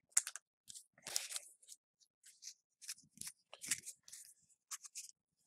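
Foil wrapper of a hockey card pack crinkling and tearing as it is opened by hand: quiet, scattered short crackles and rustles.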